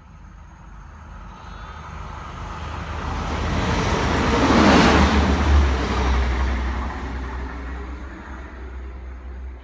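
Diesel multiple-unit passenger train passing: its rumble and rail noise swell to a peak about five seconds in, then fade as it goes by, leaving a low engine drone.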